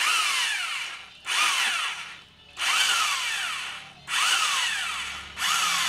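Handheld electric drill with a hole cutter boring through 20 mm steel plate. It runs in loud pulses about every 1.3 seconds, five in all: each starts suddenly, its pitch rising briefly and then falling, and fades before the next.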